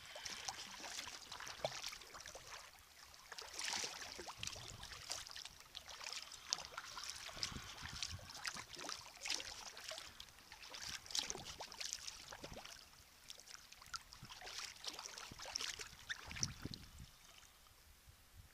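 Sea kayak paddle strokes: the blades dipping into and pulling through the water, with splashing and dripping that swell and fall with each stroke, then fade near the end.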